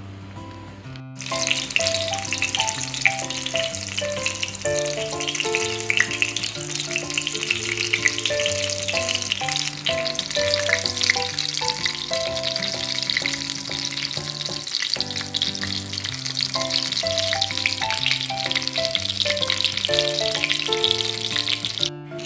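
Tuna-topped eggplant halves frying in hot oil in a pan: a steady crackling sizzle that starts about a second in and cuts off just before the end, under background music.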